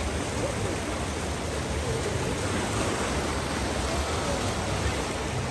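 Rushing, churning water in a river rapids ride channel, a steady noise heard from the ride boat.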